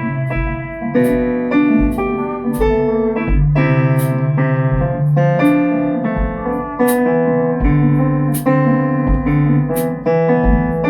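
Multitrack instrumental music led by sustained keyboard chords in an electric-piano tone, over a drum kit keeping a steady beat with low kick-drum thumps and short cymbal hits.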